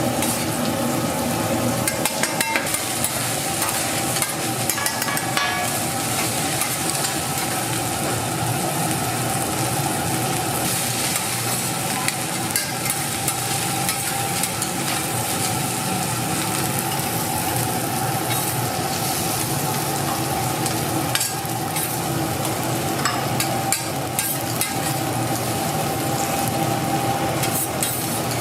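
Egg fried rice sizzling on a hot metal cooking surface as it is stirred and tossed with a metal spatula, with frequent small clicks and scrapes of the spatula against the pan.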